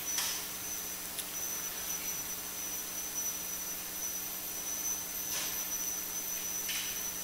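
A steady, thin, high-pitched electronic whine over a low hum, broken by a few brief soft rustles.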